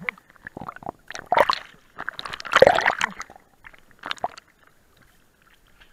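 Seawater splashing and sloshing around an action camera at the ocean surface as it dips under and breaks back out, in irregular bursts; it falls quiet about four and a half seconds in.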